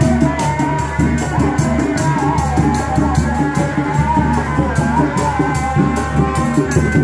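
Sundanese Reak ensemble playing: dogdog drums beat a fast, steady interlocking rhythm, with a wavering melody line above it.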